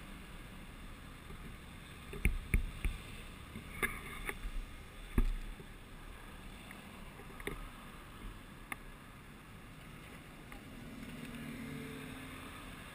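City car traffic passing through an intersection: a low, steady rumble with several sharp knocks between about two and nine seconds in, and an engine hum that swells near the end.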